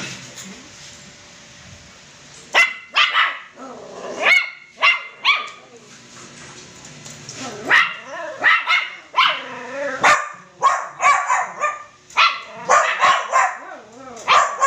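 Poodle-crossbreed puppies barking and yipping in short, high-pitched bursts: a few scattered barks in the first five seconds, then a quick, almost continuous run of barks from about eight seconds on.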